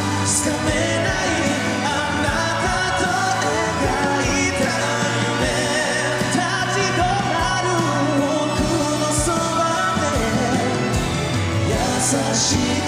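Pop ballad sung live by male vocalists over band accompaniment.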